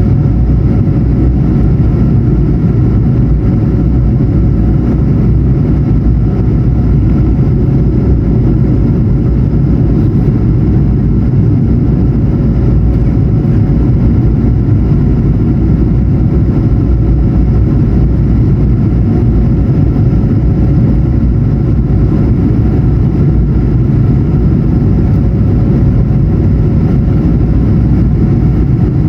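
Steady cabin noise inside an Airbus A220-100 during descent: an even, loud rumble of airflow and its Pratt & Whitney PW1500G geared turbofan engines, with a faint steady hum above it.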